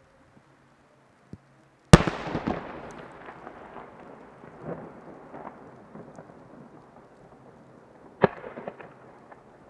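Large aerial firework shell bursting with a loud bang about two seconds in, its echo rumbling and fading over several seconds amid scattered crackles; a second, weaker bang comes near the end, followed by more crackling.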